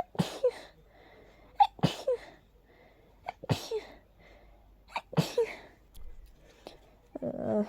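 A person in an allergy sneezing fit, sneezing four times in quick succession about every second and a half, each sneeze a sharp intake followed by a noisy burst. A short voiced breath or sound follows near the end.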